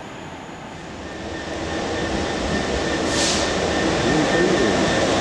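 A Class 66 diesel-electric locomotive, with its two-stroke V12 engine, runs close past the platform hauling container wagons, growing louder over the first three seconds and then holding steady. There is a brief hiss about three seconds in.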